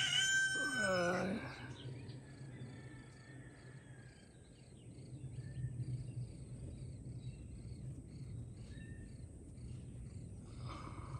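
A rooster's crow ends in the first second and a half, its pitch falling away. After it come faint, evenly repeated high chirps about twice a second, the begging of nestling woodpeckers in the nest hole, over a steady low hum.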